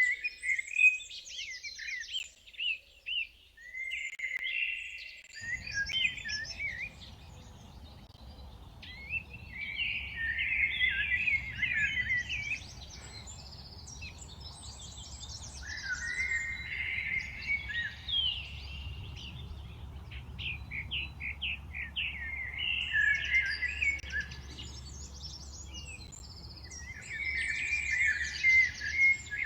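Songbirds singing and chirping in repeated bursts of quick trills and chirps. A low, steady background rumble comes in about five seconds in.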